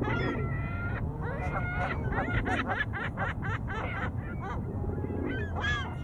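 Geese honking: a call at the start, then a quick run of short honks about two to four seconds in, and another call near the end.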